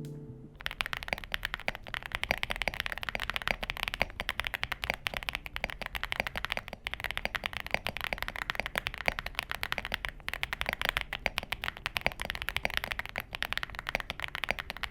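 Fast continuous typing on an Aula F65 mechanical keyboard fitted with stock, factory-lubed Gateron Smoothie linear switches with full POM housings: a dense run of keystroke clacks with a creamy tone, starting about half a second in.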